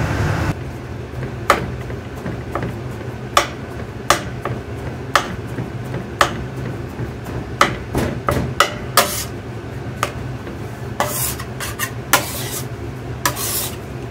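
Metal bench scraper tapping and scraping against a marble slab as crumbly dough is gathered: scattered sharp clicks, with several longer scrapes in the second half.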